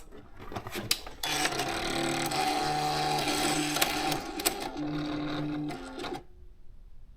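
A Casio CW-60 thermal typewriter switched on, its mechanism whirring with a hum that shifts pitch in steps for about five seconds, after a couple of clicks. The machine is faulty and no longer works properly.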